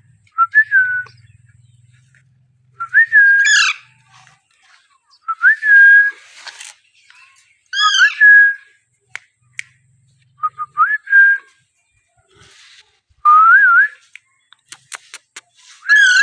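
Alexandrine parakeet giving short whistled calls, about seven, one every two to three seconds, some ending in a quick upward sweep. A run of sharp clicks comes shortly before the end.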